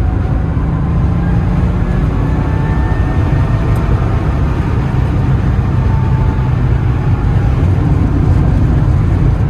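1987 Porsche 930 Turbo's air-cooled turbocharged flat-six running steadily while the car is driven, a dense low-pitched engine and road sound with no marked change in revs.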